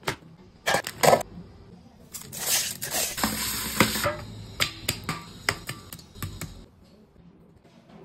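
Tap water running into a steel bowl as hands rinse and turn pieces of raw fish, with sharp clinks and knocks of the fish and hands against the bowl. The rush of water is loudest from about two to four seconds in, and scattered knocks follow.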